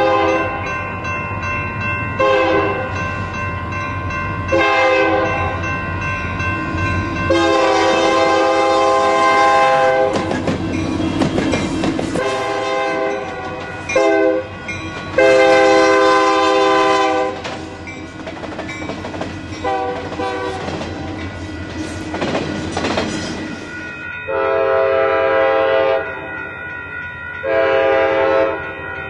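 Diesel locomotive multi-chime air horn sounding the grade-crossing signal: two long blasts, a short one and a long one, then more blasts as the locomotives pass, with their engines and wheels clattering over the rails. Near the end, a second train's horn sounds repeated blasts.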